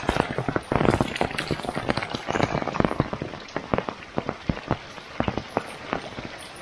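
Heavy rain falling, with many separate drops striking close to the microphone in an irregular stream of sharp ticks, a little heavier in the first few seconds.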